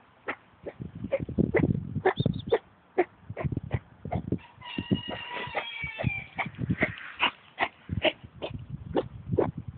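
Dog coughing over and over in short, irregular hacking coughs, the cough of kennel cough, with a drawn-out pitched, squeaky sound about halfway through.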